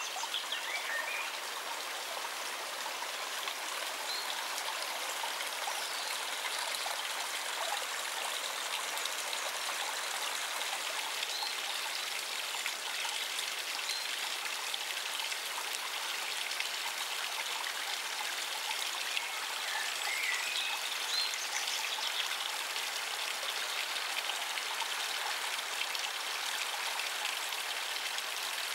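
A small stream running over rocks: a steady, even rush of water.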